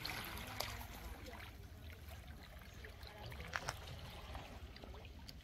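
Faint seaside ambience: calm sea water lapping gently at a sandy shore, under a steady low rumble, with a few light clicks.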